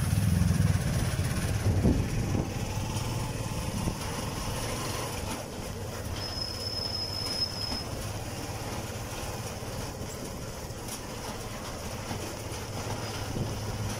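Motorcycle tricycle's engine running as it rides along, louder in the first few seconds. A thin high steady tone sounds for about a second and a half midway.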